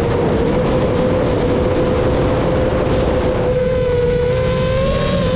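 Aircraft engine running steadily: a constant droning tone over a dense rushing noise, the pitch rising slightly near the end.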